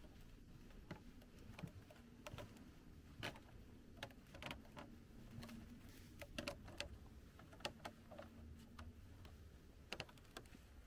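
Faint, irregular clicks and taps of footsteps on the wooden boards of a lake pier.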